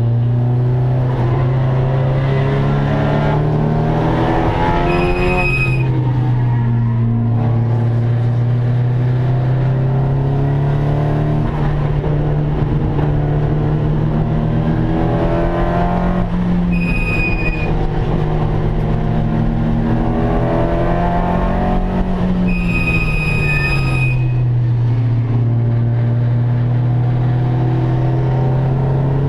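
Nissan 240SX race car's turbocharged SR20DET inline-four running hard, heard from inside the stripped cabin. Its pitch climbs slowly under power, then drops sharply three times as the car slows, with short high squeals at each slowdown.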